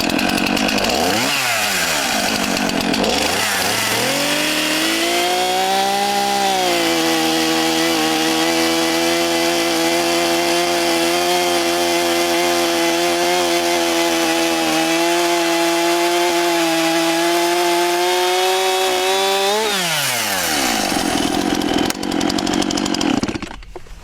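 Stihl MS 241 two-stroke chainsaw with 3/8 Picco chain, running at full throttle and bucking through a log. The engine holds a steady lower pitch under load for most of the cut, then revs free as the bar comes out and drops back just before the end.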